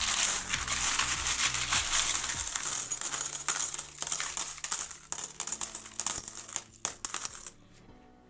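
Loose metal coins clinking and jingling continuously as a hand rummages through a tub of mixed world coins, stopping suddenly about seven and a half seconds in.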